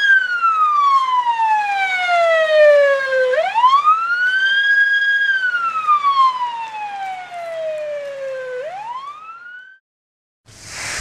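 Ambulance siren on a slow wail: the pitch rises quickly, holds, then slides slowly down, twice over, growing fainter as the ambulance drives away, and cuts off mid-rise just before the end. A short whoosh follows right at the end.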